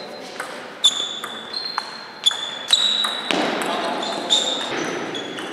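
Table tennis ball clicking sharply off bats and table in a rally, each hit with a short high ring, roughly every half second.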